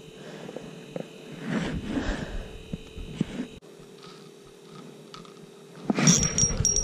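Clothing rustling and soft knocks as a fishing rod and reel are handled against a chest-mounted camera, over a steady electrical hum that drops out partway through. Near the end comes a sudden loud scraping burst with a thin high whine.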